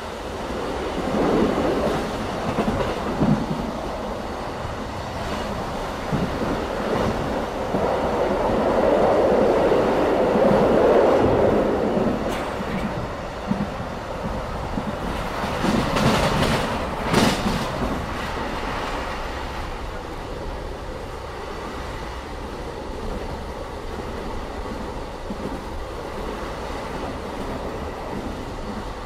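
Running noise of a BLS passenger train heard inside the coach: a steady rumble of wheels on rail with clickety-clack from the rail joints. It swells louder about a third of the way in. A few sharp knocks come a little past halfway as the train runs through a station without stopping.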